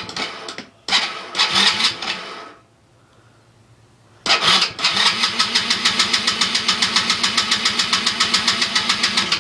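ATV engine being cranked by its electric starter, turning over in rapid, even pulses without catching: it will not start. The cranking stops about a second in, runs again briefly, pauses for over a second, then cranks steadily for about five seconds.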